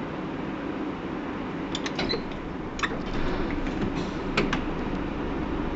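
Inside a Hino PDG-KV234N2 city bus while it runs: a steady drone of engine and road noise, with a scatter of creaks and rattles from the body and fittings about two seconds in and a sharper one a little past four seconds.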